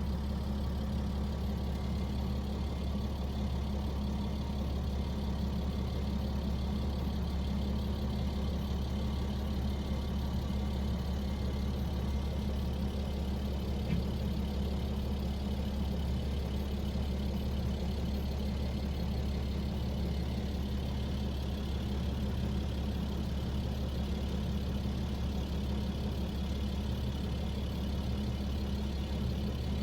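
An engine idling steadily, a low even hum that stays unchanged throughout.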